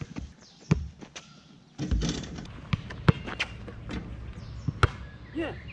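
Basketball dunk attempt on an outdoor hoop: a string of sharp knocks and thuds from the ball and the rim, the loudest about three seconds in and again near the end.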